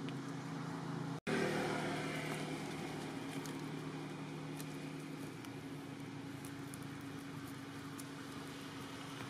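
A motor vehicle's engine running steadily, heard as a low hum under an even outdoor haze, with a few faint ticks over it. The sound drops out for an instant a little over a second in.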